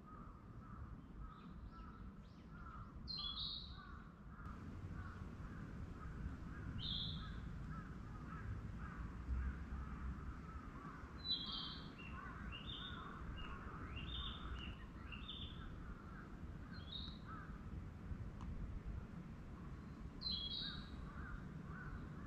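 Birds calling in woodland: short high calls repeated every second or so, more often in the middle, over a steady chatter of lower repeated notes and a low rumble underneath.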